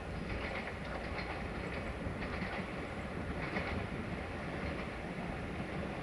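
A train running on the rails, its wheels clicking over rail joints in small groups about once a second over a steady low rumble.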